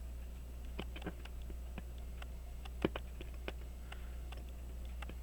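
Faint, irregular small metallic clicks and taps of a watchmaker's screwdriver on a tiny screw in a pocket watch movement, the blade slipping out of the slot as the screw refuses to turn; the sharpest click comes about three seconds in. A steady low hum runs underneath.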